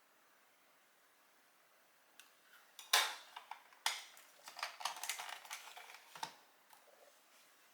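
Kitchenware being handled: a run of light clinks and knocks starting about two seconds in, the sharpest about three seconds in, thinning out near the end.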